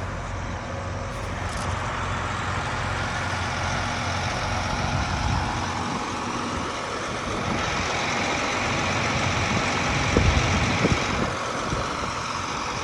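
Large farm harvest machine's diesel engine running steadily under a broad, even rush of machinery noise. From a little past halfway the higher part of the rush swells for a few seconds, and a few short knocks come near the end.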